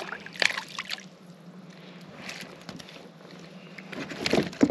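Water splashing and sloshing at the side of a kayak in short bursts, once near the start and again near the end, as a hooked fish is brought in.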